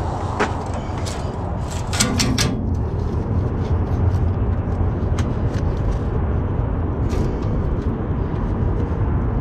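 Steady low rumble with a few sharp clicks and knocks, the loudest a quick run of four about two seconds in.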